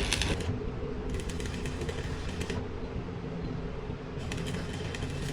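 Spells of rapid crackling clicks, each lasting about a second or so, start and stop over a steady low mechanical hum.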